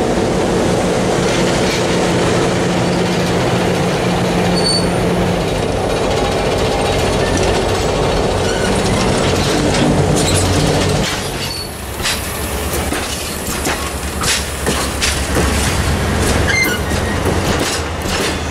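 Stainless-steel passenger cars rolling past close by: a steady rumble of steel wheels on the rails, with a few brief wheel squeals. In the second half comes a run of sharp clicks and clacks from the wheels.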